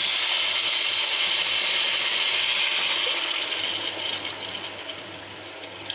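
Hot oil and fried rice sizzling as water is poured into the pan from a measuring cup, a steady hiss that fades over the last couple of seconds as the water takes the heat out of the pan.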